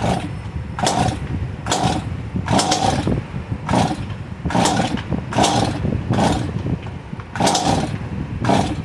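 STIHL MS 250 C two-stroke chainsaw being pull-started over and over, about ten quick pulls of the recoil starter roughly a second apart, the engine turning over without catching. It is short of fuel and wants to start but doesn't run.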